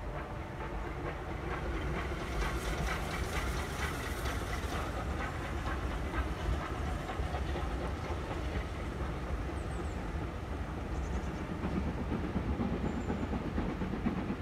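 Steam train hauled by an LMS Stanier 5MT 2-6-0 locomotive running across a brick viaduct: a steady rumble of the train on the rails, with a brighter spell of hiss and rhythmic wheel clicks about two to five seconds in.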